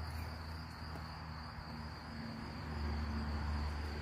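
Insects chirring in a steady high-pitched drone, over a low hum that grows louder about three seconds in.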